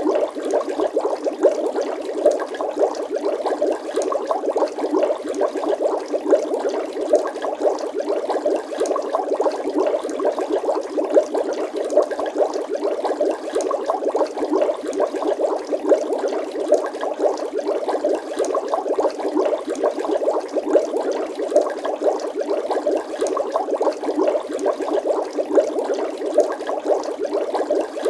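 Water bubbling steadily, a dense run of many small bubbles popping in quick succession with no pause.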